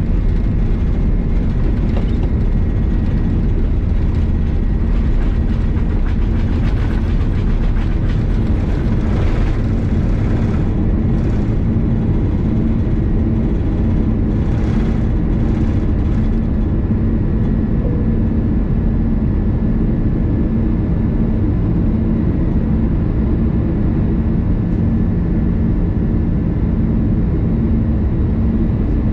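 Steady roar and rumble of an Airbus A330-200's engines heard inside the cabin, with a pulsing low hum and brief hissy swells about a third of the way in.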